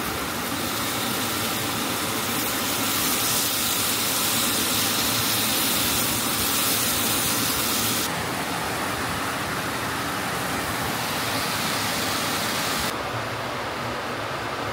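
Pork skewers sizzling in a hot flat frying pan: a steady, dense hiss. It drops abruptly in level about eight seconds in and again near the end.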